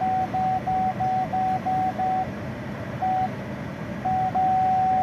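2023 MG ONE rear parking-aid warning beeping during a test of freshly replaced sensors and wiring harness: a single-pitch beep about three times a second, a pause and one lone beep, then a steady unbroken tone near the end, the sign of an obstacle very close behind the bumper.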